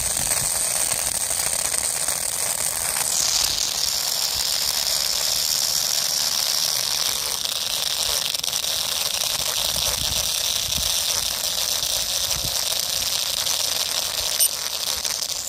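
Small brushed DC motor spinning a plastic drill bit into sand: a high motor whine over a rough grinding noise. The whine drops in pitch about three seconds in and then holds steady, as the bit digs in and loads the motor.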